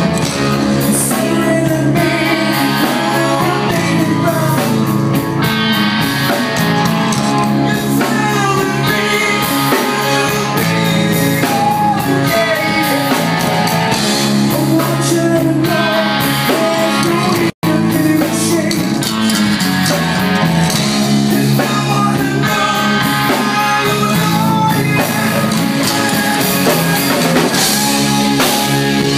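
Live rock band playing: electric guitar, drum kit and a singer's vocals through the PA, loud and continuous. The sound cuts out completely for an instant a little past halfway.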